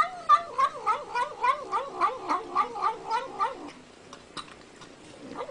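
An animal's long wavering call, rising and falling in pitch about four times a second for some three and a half seconds before stopping, followed by a few faint clicks.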